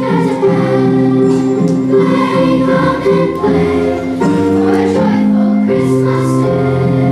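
Children's choir singing a song, holding notes that change every half second or so.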